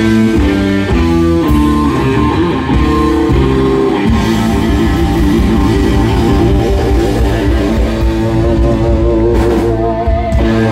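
Live blues band of electric guitar, electric bass and drums playing a run of short chord hits, then holding one long chord with wavering pitch to close the song.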